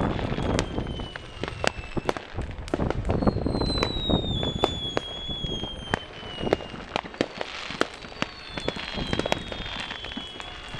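Many distant fireworks going off at once: scattered bangs and crackling firecrackers, with long whistles from whistling fireworks that slowly fall in pitch, one starting about three seconds in and another about eight seconds in.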